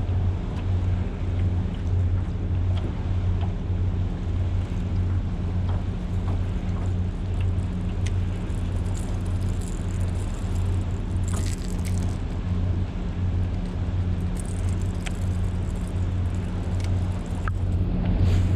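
A boat's outboard motor running at a steady speed, a low even hum that does not change.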